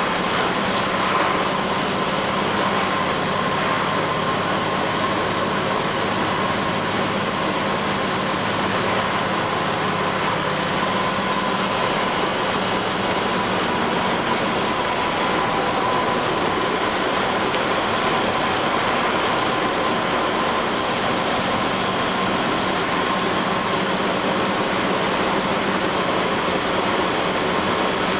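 Inside a 1999 International diesel school bus under way: the engine runs steadily under the noise of the road, with a faint steady whine and a light rattle of the body and fittings throughout.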